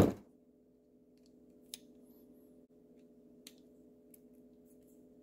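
A few faint, scattered clicks of a small-engine carburetor's parts being handled and worked by hand, at about two, three and a half and four seconds in, over a steady low hum.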